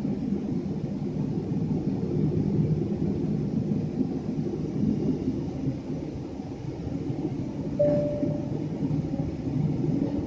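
Boeing 777 engines at idle, heard inside the passenger cabin as a steady low rumble. About eight seconds in, a short ringing tone starts sharply and fades within a second.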